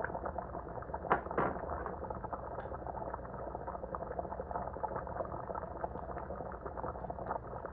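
Pot of soup bubbling at a steady boil, a continuous crackling burble, with a couple of sharper clicks about a second in.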